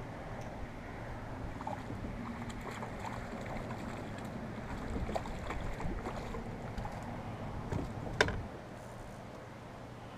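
A hooked fish splashing and thrashing at the water's surface beside a small aluminium boat as it is reeled in, with small clicks and knocks, then one sharp knock about eight seconds in. A steady low hum runs underneath.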